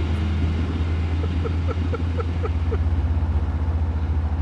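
Car engine running under way with a misfire. Its low drone turns into an uneven, pulsing beat about halfway through. A run of about six short, quick chirps sounds over it near the start.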